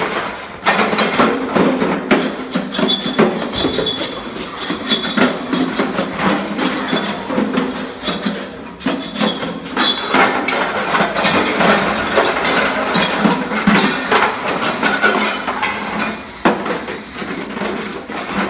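Objects being scraped and rattled against the inside of a large brass pot by hand: a dense, continuous metallic grinding full of clinks and knocks. A thin high squeal comes in near the end.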